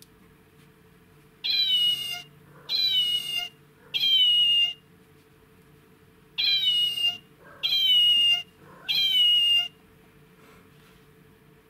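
Squeeze-activated plush kitten toy's sound chip playing a recorded meow six times, in two sets of three, each call short and falling in pitch.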